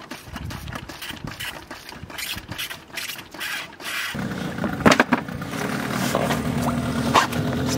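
Clunks and knocks in an inflatable dinghy, then a Suzuki outboard motor starts about four seconds in and runs steadily, with a couple of sharp knocks over it.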